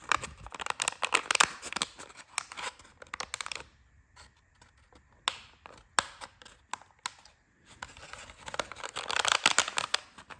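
Thin 3D-printed plastic strips being flexed, rubbed and slotted together by hand: scratchy crackling with many small clicks, easing off in the middle to a few single clicks, then busy rustling again near the end.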